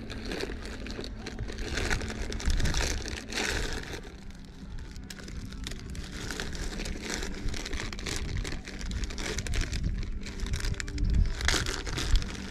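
Rummaging through a bass boat's deck storage compartment: plastic lure packaging crinkles and gear clicks and clatters irregularly. Wind gusts rumble on the microphone, with a faint steady hum underneath.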